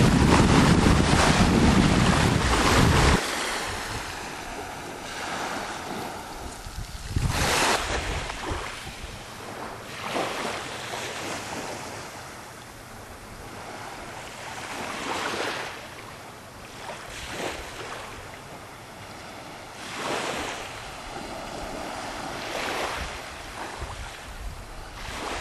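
Wind on the microphone and water rushing along the hull of a sailboat under sail, cutting off about three seconds in. After that, small waves wash onto a rocky shore, swelling and fading every few seconds.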